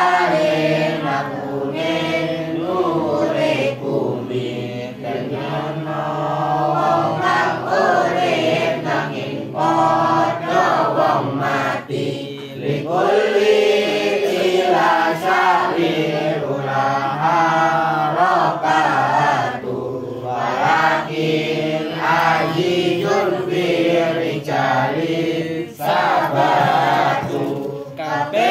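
A group of children's voices chanting a religious text together in unison from printed sheets, in long sung phrases with short breaks between them.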